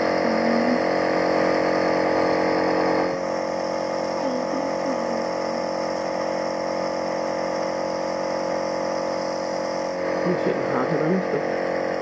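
Home compressor nebulizer running with a steady droning hum while it turns liquid medicine into mist, partway through a treatment. The hum drops a little in level about three seconds in.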